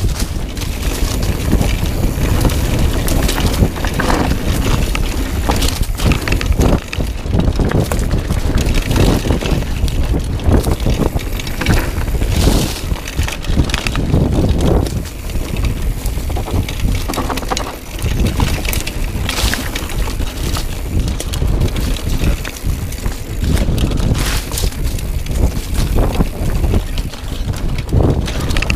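Wind buffeting the camera microphone as a mountain bike rides over a rough, stony singletrack, with irregular knocks and rattles from the tyres and bike over the bumps.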